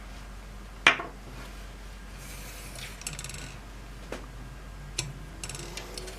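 Small hand tools handled on a workbench during soldering work: one sharp tap about a second in, two lighter taps later, and short rasping scrapes between them.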